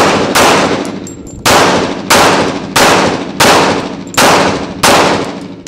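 Semi-automatic pistol fired in a string of eight shots, mostly about two-thirds of a second apart, with a longer pause after the second shot. Each shot is followed by a long echoing decay off the range walls.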